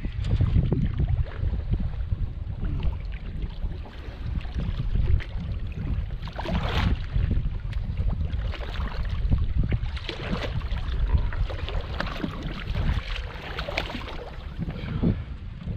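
Wind buffeting the microphone aboard a small boat, a steady low rumble, with water splashing and sloshing against the hull.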